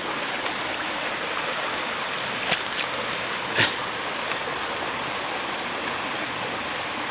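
Small mountain waterfall and stream rushing steadily into a pool, with two short sharp knocks about two and a half and three and a half seconds in.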